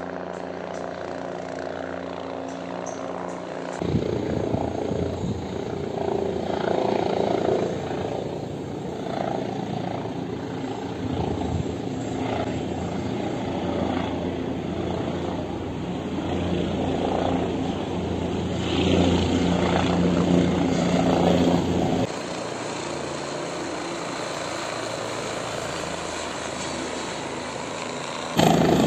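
Helicopter flying past and overhead, its rotor and engine making a steady drone. The sound changes abruptly about four, twenty-two and twenty-eight seconds in, where separate recordings are joined.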